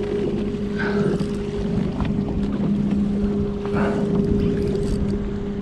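Outboard motor running steadily at trolling speed, a constant low hum, with water and wind noise around the boat.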